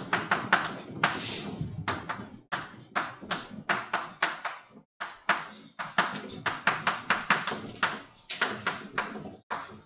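Chalk writing on a blackboard: a quick, irregular run of taps and short scratchy strokes, with brief pauses twice.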